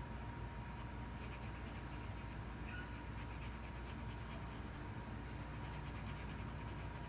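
Fine-tip permanent marker (overhead-projector/CD marker) drawing on EVA foam: faint, quick scratchy strokes as spots are inked along the edge. Under it runs a steady low hum with a thin high tone.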